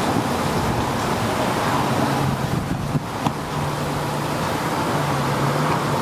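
Strong gusty wind rushing and buffeting the microphone. A low steady hum from passing road traffic comes through in the second half.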